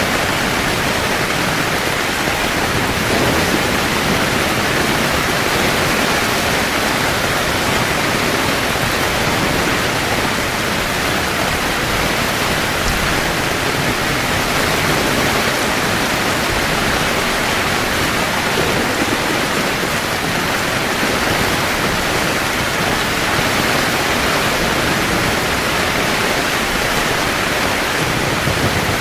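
Heavy rain falling steadily on a camping tent, a dense, even hiss with no breaks.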